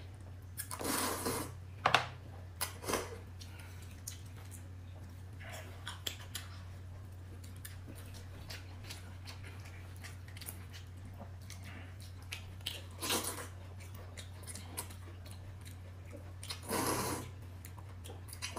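Someone eating quietly: intermittent chewing with small clicks of utensils, and a few louder bursts near the start, in the middle and near the end, over a steady low hum.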